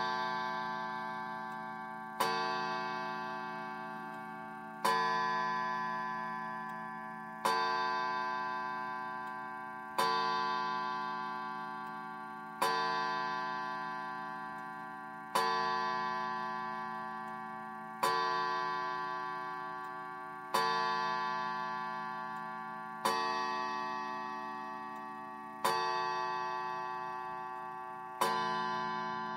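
Smiths Enfield Bakelite 'York' striking mantel clock striking twelve on its gong. There are twelve slow, evenly spaced blows about two and a half seconds apart, and each rings on and fades before the next.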